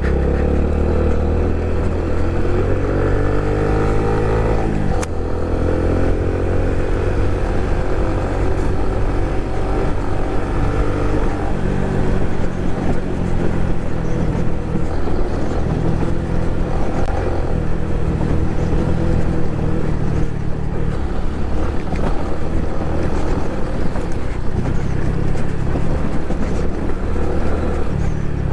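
Honda Pop 110i's small single-cylinder four-stroke engine under way on a dirt trail, rising in pitch as it revs up over the first five seconds, dropping sharply about five seconds in, then running at a steadier pitch.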